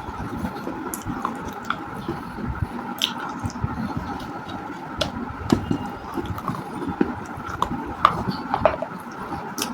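Close-miked crunching and chewing of roasted clay pieces: irregular crisp cracks and snaps over a steady mouth-noise bed.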